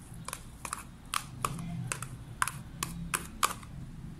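About ten light, irregular clicks and taps as julienned bell pepper is tipped from a plastic container into a stainless steel mixing bowl.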